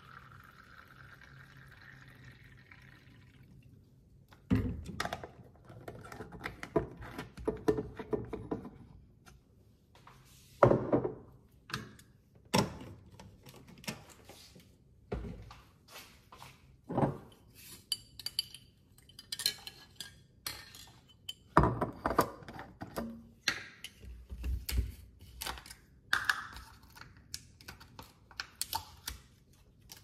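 Water running into a container for the first few seconds, its pitch rising as it fills. Then plastic and glass kitchen containers and dishes clatter and clink as they are handled and set down: many separate knocks at irregular intervals.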